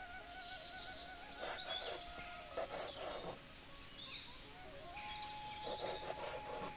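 A kitchen knife slicing through soft Lasia spinosa sausages on a wooden chopping board, in three short bursts of cutting and scraping. Soft background music with long held notes plays underneath.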